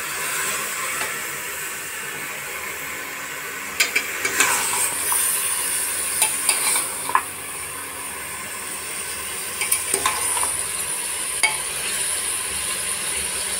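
Raw mutton pieces sizzling in hot ghee in a metal pot as they are first browned, the start of the bhuna stage. A steel spoon stirs them and scrapes and clinks against the pot now and then.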